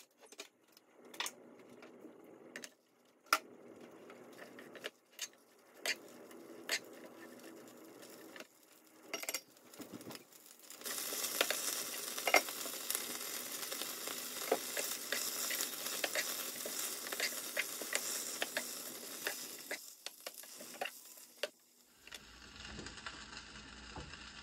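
Scattered light clicks and taps, then about eleven seconds in, baby bok choy sizzles loudly in hot oil in a nonstick pan while a wooden spatula stirs and taps it. The sizzling stops about twenty seconds in, and a low steady hum follows near the end.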